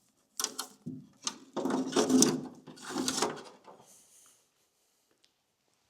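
A long wiring loom being coiled up and set aside: a run of knocks, scrapes and rustling over about four seconds, then quiet.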